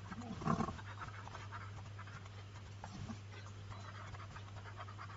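Quiet microphone background between spoken phrases: a steady low electrical hum with faint breathing and soft stylus ticks as handwriting goes onto a drawing tablet. A brief louder sound comes about half a second in.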